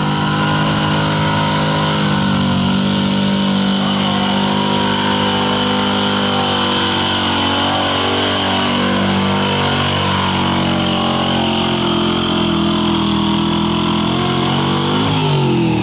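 A square-body pickup truck's engine running at high revs under full load as it drags a weight-transfer pulling sled. Its pitch holds steady, then drops sharply about fifteen seconds in as the throttle comes off at the end of the pull.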